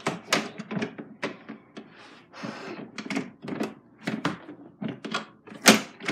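A quick, irregular run of sharp knocks and clatters, several a second, with a brief rustle or scrape about halfway through.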